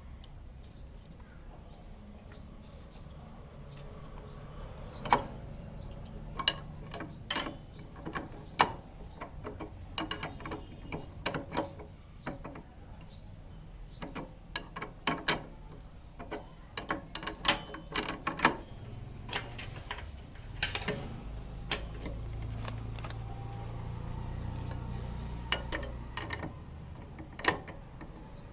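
Irregular sharp metallic clicks and knocks of hand tools and parts being handled during scooter repair work, with a bird chirping repeatedly in the background.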